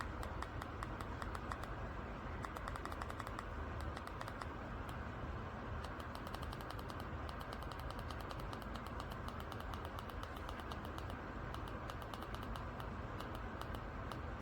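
Steady whoosh of a small flush-mount ceiling fan with a DC motor running, with rapid, irregular clicking over it in quick clusters.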